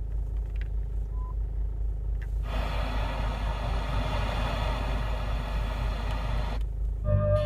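Car FM radio hissing with static between stations for about four seconds over a steady low cabin hum. The static cuts off suddenly and a station's sound comes back briefly near the end.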